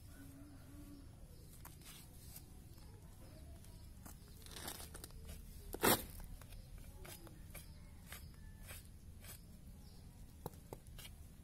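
Goat skin being cut and pulled away from a hanging carcass with a knife: faint tearing and scraping. One short, sharp, much louder sound comes about six seconds in.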